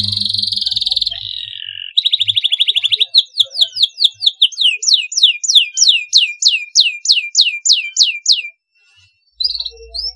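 Canary singing: a buzzing trill, then a fast rattling trill, then a long run of quick falling whistled notes at about three to four a second, breaking off about eight and a half seconds in, with a few short chirps near the end.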